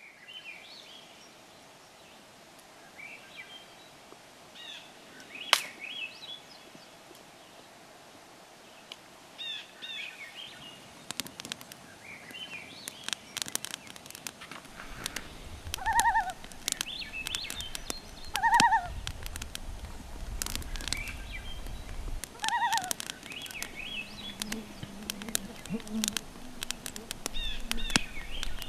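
Small birds chirping faintly at a calm lake. About eleven seconds in, a small campfire of sticks in a stone ring starts crackling and popping, while a louder short falling bird call comes three times.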